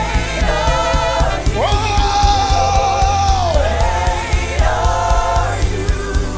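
Live gospel worship music: singers hold long, sustained notes in harmony over a band with bass and drums.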